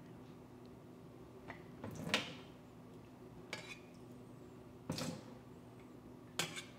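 Metal ladle skimming whey off set curd in an enamelled pot: about five faint, brief clinks and scrapes of the ladle against the pot, roughly a second apart.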